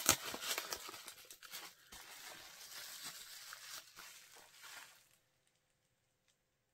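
Packaging crinkling and tearing as it is unwrapped and handled, a run of small crackles that stops about five seconds in.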